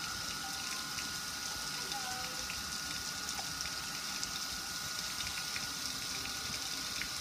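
Water spraying and splashing over a gas grill, a steady hiss with scattered small drips and ticks. A faint steady high tone sits under it.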